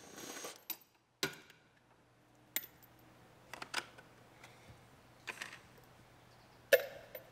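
A handful of separate light clicks and knocks from handling a plastic seat trim cover and setting a cordless impact driver down on the truck cab's floor. The loudest knock comes near the end.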